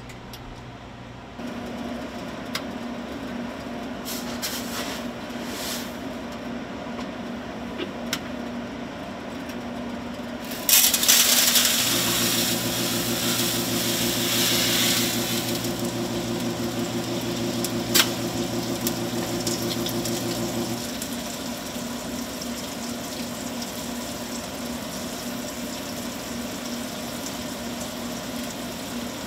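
Food-dispensing machinery running with a steady hum. About eleven seconds in, product starts pouring down a stainless steel chute with a sudden loud rush. Under it a deeper motor hum runs for about nine seconds and then stops, with a single sharp click partway through.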